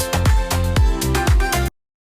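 Background dance music with a steady beat of deep, falling bass-drum thumps about twice a second, which cuts off abruptly near the end, leaving silence.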